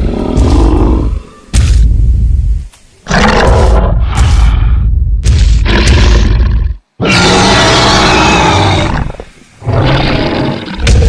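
Dinosaur roar sound effect from an animated Tyrannosaurus: a series of about six loud, rough roars and growls with short gaps between them, the longest about seven seconds in.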